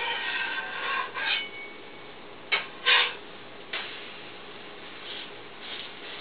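A spatula scraping against a stovetop griddle for about a second and a half, then three sharp clacks against the griddle, the second one loudest.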